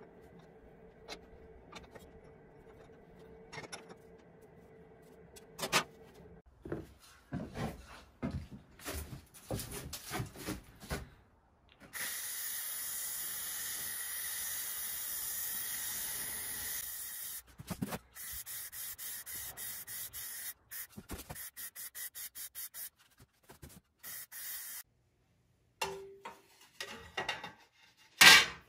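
Hand rubbing strokes on a rusty steel licence plate clamped in a vise, then an aerosol can spraying clear coat onto the plate: one long steady hiss of about five seconds followed by a string of shorter hisses. A single loud knock near the end.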